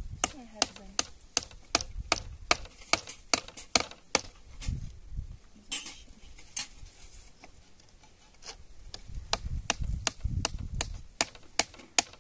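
Chopping: a run of sharp, evenly spaced knocks, about three a second, that pauses for a few seconds in the middle and then resumes.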